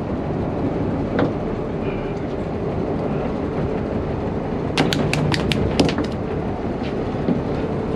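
Steady low rumble of the fishing boat. About five seconds in, a quick run of half a dozen sharp taps sounds over it.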